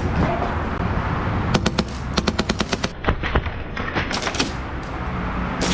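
Airsoft guns firing rapid strings of shots, one burst about one and a half seconds in and another dense run about three to four and a half seconds in, over a steady hiss of rain.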